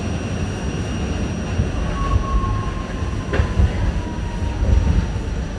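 R68 subway car running between stations, heard from inside the car: a steady low rumble of wheels on the track, with a thin wheel squeal starting about two seconds in and fading near the end, and a single sharp clack around the middle.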